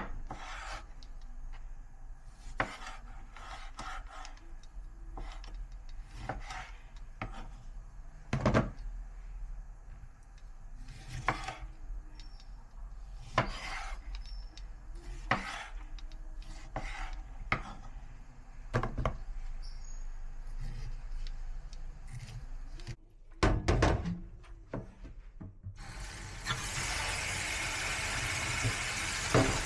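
Kitchen food preparation: separate knocks and scrapes of utensils on a wooden board and dishes, about one every second or two. Near the end a tap starts running in a steady rush.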